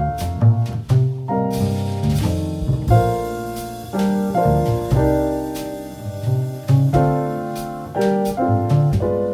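Background music led by piano, in a jazz style, with light drum hits.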